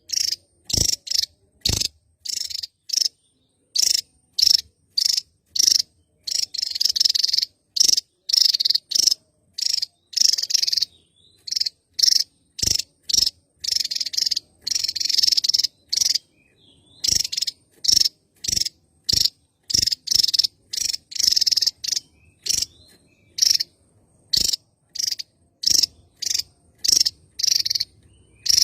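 Javan tesia singing vigorously: a long series of short, high, sharp calls, about one or two a second, now and then running together into longer runs of notes.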